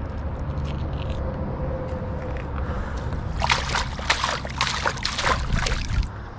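Lake water splashing and sloshing as trout are rinsed in a landing net: a run of quick splashes starting about three and a half seconds in and stopping near the end, after a low rumble.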